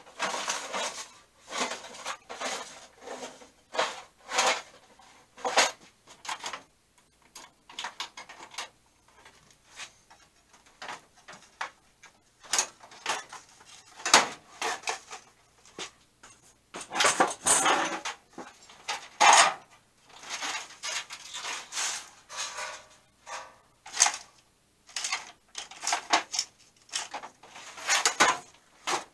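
Irregular clinks, clatters and knocks of metal tools and drawers being rummaged through, sparse for a few seconds in the middle, then busier.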